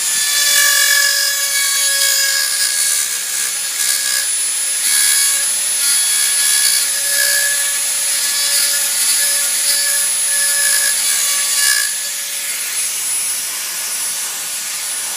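Power drill running at high speed with a steady whine, its bit cutting a large hole through a model rocket's airframe tube for a pressure port. The cutting noise comes and goes as the bit bites, and eases off after about twelve seconds.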